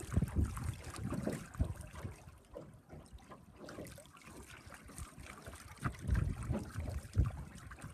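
Lake water lapping and splashing against a boat's hull in uneven bursts, with wind buffeting the microphone.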